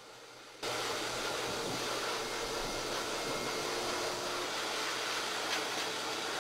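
High-velocity pet dryer blowing air through its hose, a steady rushing noise that cuts in abruptly about half a second in and holds level.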